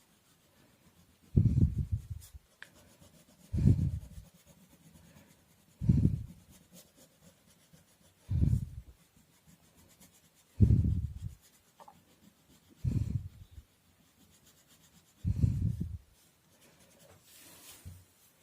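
Colour being rubbed onto paper in short, light shading strokes: dull rubbing bursts of about a second each, recurring roughly every two seconds.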